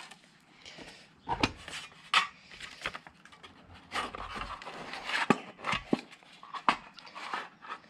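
Light clinks, knocks and rubbing of an old metal tin being opened and handled, with steel thread-cutting dies rattling inside it: scattered short taps, with the sharpest about a second and a half, two, four, five and six seconds in.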